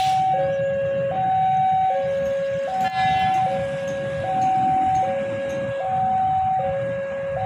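Two-tone hi-lo warning siren, alternating steadily between a higher and a lower note, each held just under a second, over a low background rumble.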